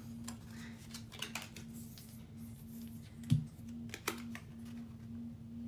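Faint scattered clicks and light taps, with one louder thump about three seconds in, over a steady low hum.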